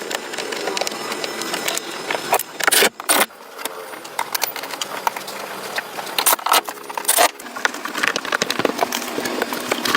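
Metallic clinking and rattling, with several sharper knocks.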